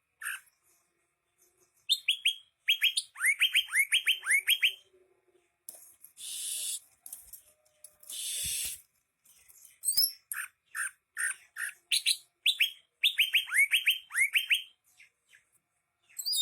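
Greater green leafbird (cucak hijau) singing vigorously: fast runs of sharp, downward-sweeping whistled notes in repeated bursts, broken by two harsh hissing sounds about a second long, around six and eight seconds in.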